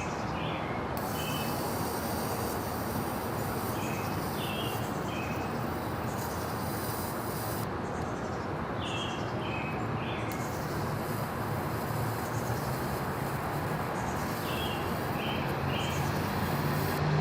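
Steady outdoor background noise with short bird chirps in several small clusters, while a high faint hiss from the rechargeable USB lighter comes on twice as it is switched on to light a piece of paper.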